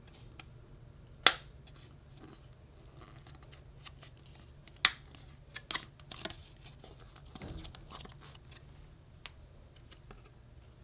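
Handling of a stiff card sleeve as it is opened and a photo card slid out: light paper rustling with two sharp clicks, one about a second in and one near five seconds, then a quick run of smaller clicks and a short rustle.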